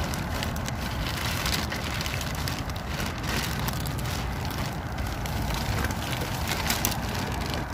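Rummaging through trash in a dumpster: irregular crackling and rustling of plastic and packaging over steady background noise.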